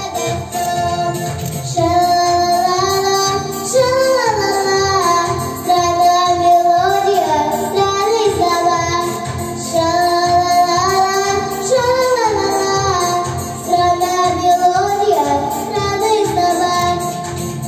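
Young girl singing a pop song into a handheld microphone over a recorded backing track with a steady beat.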